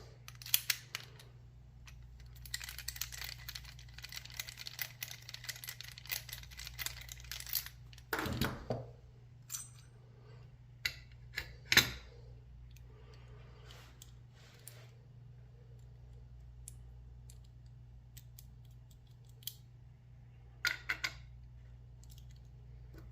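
Lock picking on a Lockwood 334B45: small metal clicks and a stretch of rapid scratchy clicking as the pick works the pins in the keyway, with a few sharper isolated clicks later on.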